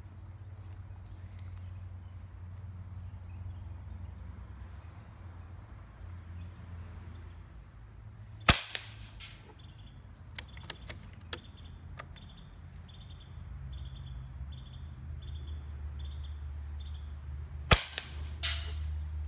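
Hatsan Nova QE .25-calibre PCP air rifle, with its built-in sound moderator, fires two shots about nine seconds apart, each a sharp crack. Between them come a few light clicks as the action is worked. The second shot is followed by a faint distant metal ding: the pellet has passed through the target and struck at 100 yards. Crickets chirp steadily in the background.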